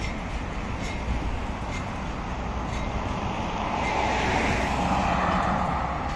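Articulated tram rolling along street tracks: a steady rumble with faint clicks from the wheels. A passing car swells louder around four to five seconds in.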